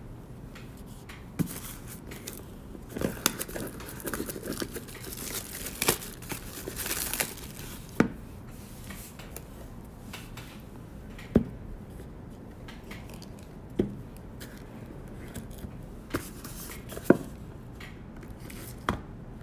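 Cardboard trading-card boxes and their packaging being handled on a table: scattered taps and knocks, with rustling and tearing for a few seconds from about 3 s in.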